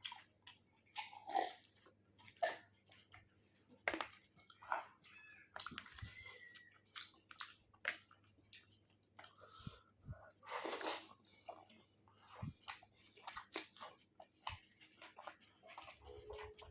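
A person chewing and biting food close to the microphone, eating chicken curry with rice: irregular wet smacks and clicks, with a longer hissing sound about ten seconds in.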